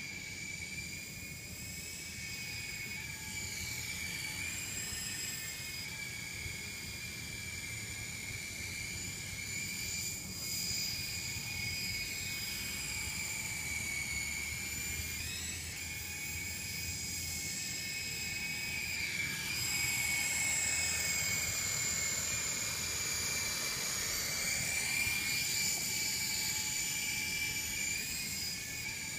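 Syma S033G electric RC helicopter in flight: a high-pitched whine of its electric motors and rotors, the pitch wavering and sweeping up and down as the throttle and direction change. It grows somewhat louder about two-thirds of the way through.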